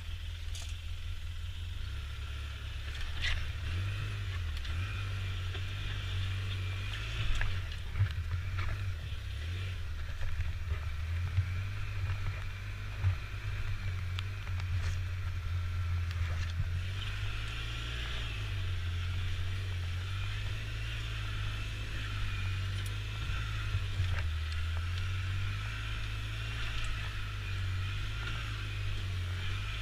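Polaris Ranger 6x6 side-by-side's engine running steadily as it crawls over bumpy tussock ground, its low drone shifting a little in pitch as the throttle changes. A few sharp knocks and rattles come as the vehicle jolts over the hummocks.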